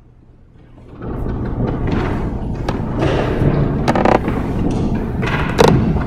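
Loud rustling and thumping close to a microphone, starting about a second in, with scattered sharp clicks: handling noise, as of a worn microphone rubbing on clothing while the wearer sits down.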